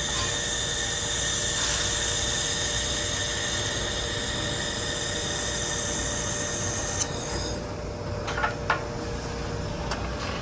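Handheld fiber laser welder running a weld on thin aluminum: a steady hiss and sizzle over a machine hum, starting about a second in and cutting off suddenly around seven seconds in, followed by a few light clicks.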